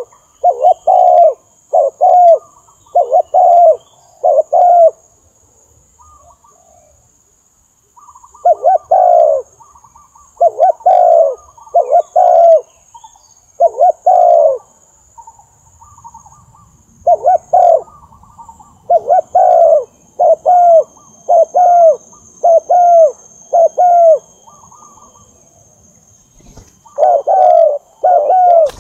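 Spotted dove cooing: short, loud coos repeated in phrases of several notes, with pauses between the phrases.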